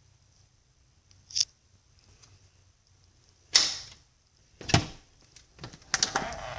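A dog sneezing, two sharp bursts of breath about a second apart, followed by clicks and shuffling noise near the end.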